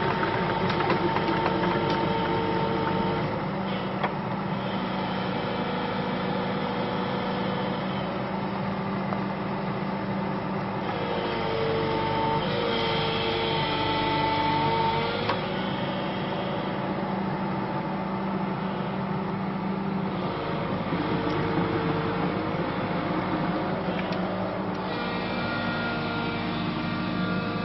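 Excavator with a RaMeC firewood processor head working: steady machine hum with whining hydraulic pitches that shift every few seconds, and a few sharp knocks.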